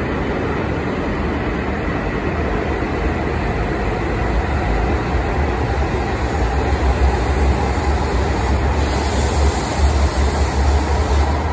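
E5 series Shinkansen pulling out along the platform, its running noise and low rumble building as it gathers speed, with a rising hiss near the end.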